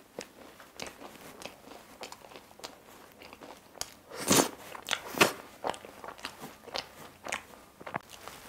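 Someone biting into and chewing a flaky puff-pastry tiramisu pie, with crisp crackles and crunches throughout. Two louder crunches come a little past the middle.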